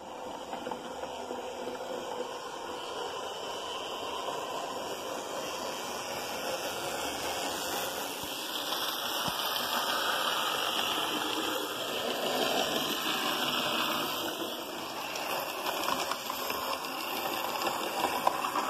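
Hornby Class 47 OO gauge model locomotive running on track, its Ringfield motor and gears giving a steady whirr and its wheels rattling on the rails. The sound swells in the middle as the loco comes nearer. The gear noise is what the owner hopes to quiet by filing the moulded lettering off the gears.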